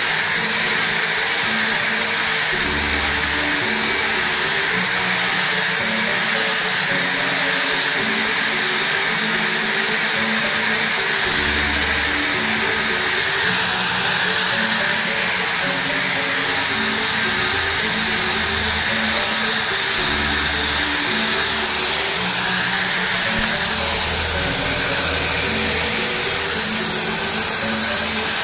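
Electric hand angle grinder running steadily with a fine 240-grit sanding disc, a steel knife blade held against it to sand off rust. A loud, steady high motor whine sits over the grinding noise.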